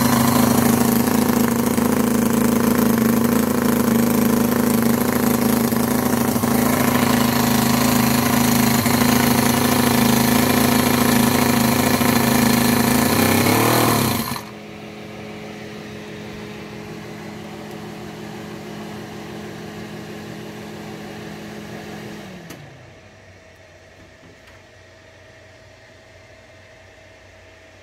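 Cison L4-175 miniature inline four-cylinder four-stroke engine running steadily on nitro glow fuel. About halfway through, as its fuel line is pinched, it briefly speeds up as it starves and then cuts out suddenly. A quieter steady motor hum carries on afterwards and winds down about eight seconds later.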